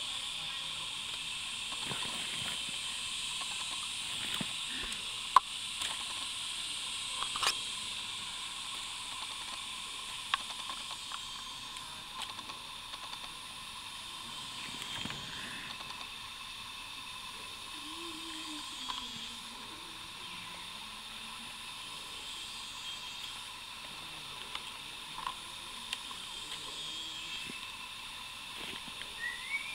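Steady high hiss with a few scattered sharp clicks and knocks as keeled box turtles clamber over one another's shells in dry leaf litter.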